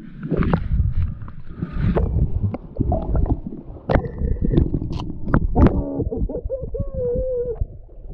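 Muffled underwater sound of water moving around a diver's camera: a low rumble with gurgling and irregular knocks and clicks. A short wavering hum-like tone comes about seven seconds in.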